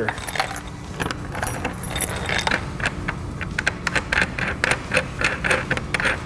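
A bunch of keys on a keychain jingling, with many light metallic clicks as a key unlocks and fingers turn a metal locking fuel-fill cap.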